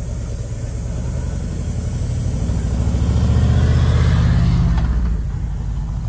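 A motor vehicle's engine runs with a steady low rumble. It grows louder a few seconds in and drops back after about five seconds.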